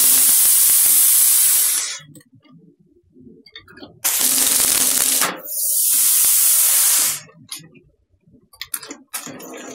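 Vertical packaging machine running, with loud bursts of hissing. The first lasts about two seconds, then two more come back to back from about four to seven seconds in. Light clicking follows near the end.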